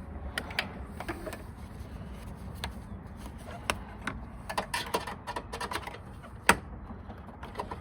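Irregular clicks and taps of parts being handled and worked into place in a 2009 Jaguar XJ8's headlamp housing, with one sharper click near the end.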